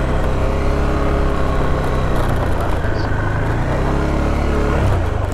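A vehicle engine running steadily at a fairly even pitch.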